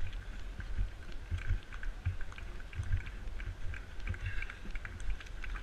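Wind buffeting and irregular low thumps on the microphone of a pole-held camera carried by a runner, the jolts of his running stride.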